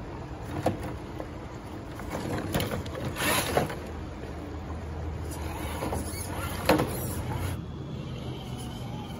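Traxxas TRX-4 Defender RC rock crawler's electric motor and drivetrain whirring steadily as it crawls over rocks, with several sharp knocks of its tyres and chassis against the stones.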